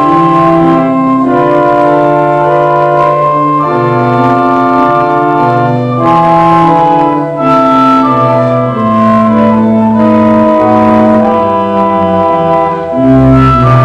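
Church organ playing slow sustained chords over a moving bass line.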